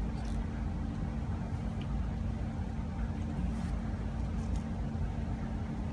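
Steady low room hum from lab equipment, with a faint steady tone in it. A few faint light clicks sound as the steel sample cell is handled and its nut turned finger-tight.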